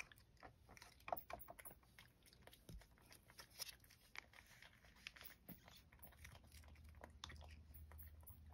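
Faint, scattered small clicks and crinkles as a cat is hand-fed a Churu lickable treat squeezed from a plastic stick pouch.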